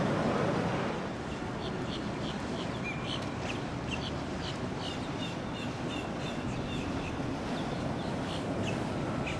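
Rushing water and wind noise for about the first second, then a steady outdoor hush with many short, high bird chirps and calls, some in quick runs.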